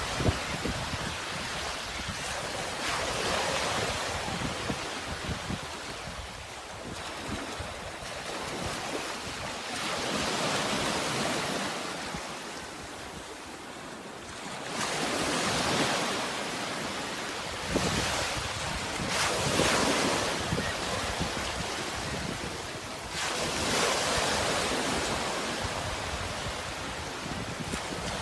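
Sea waves breaking and washing ashore, the surf swelling and fading in waves a few seconds apart.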